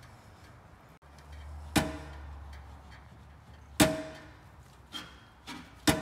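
A chrome slip-on motorcycle muffler being knocked into position on its header and hanger: three sharp knocks about two seconds apart, each ringing briefly with a metallic tone, with a couple of lighter knocks between the last two.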